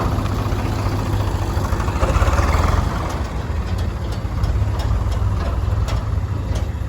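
Heavy diesel engine running steadily, swelling louder for about a second around two seconds in, with a few light clicks later on.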